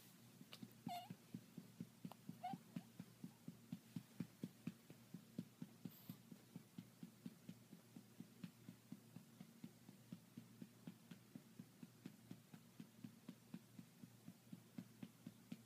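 A hand patting a baby's back to bring up a burp: soft, even pats, about three a second. Two brief small squeaks from the baby in the first few seconds.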